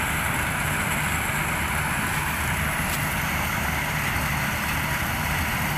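Kubota tracked combine harvester running steadily as it cuts and threshes a standing corn crop: an even engine hum under a constant hiss, with no change in pace.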